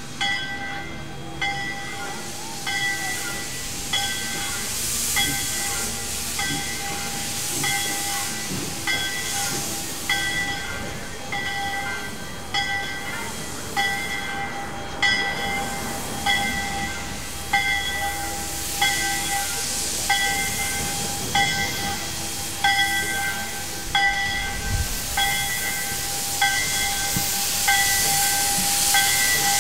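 Jeddo Coal No. 85 steam locomotive's bell ringing steadily, a strike about every three-quarters of a second, over the hiss of steam from its open cylinder cocks as it pulls slowly ahead. The hiss grows louder near the end.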